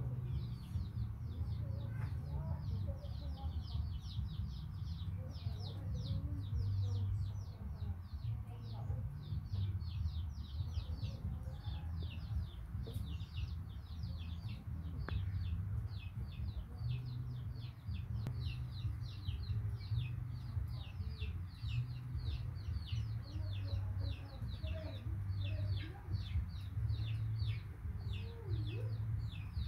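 Background bird sounds: a steady run of short, high, falling chirps, several a second, with chickens clucking faintly now and then, over a steady low hum.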